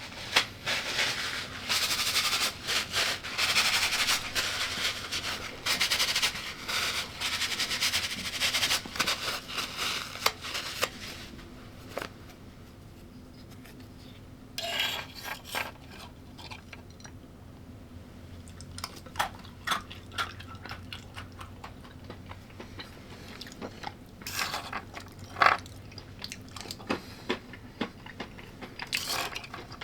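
Close-up eating sounds: loud, dense crunching of crisp food for about the first ten seconds, then quieter chewing with scattered clicks, a few louder crunches and light scrapes of cutlery on a dish.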